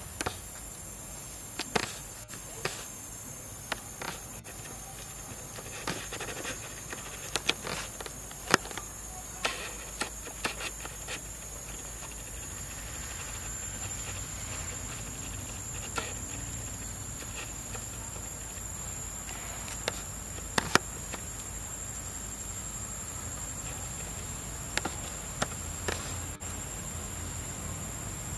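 Steady high-pitched drone of insects, with scattered sharp clicks and ticks throughout, two of them louder about eight and twenty seconds in.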